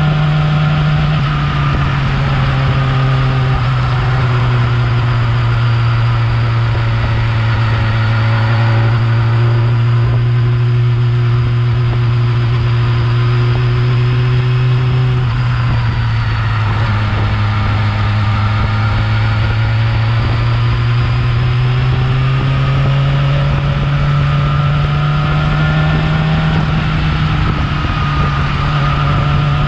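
Yamaha R6 inline-four engine with its stock exhaust, running steadily at moderate revs; the engine note sinks slowly over the first half and climbs gradually again toward the end.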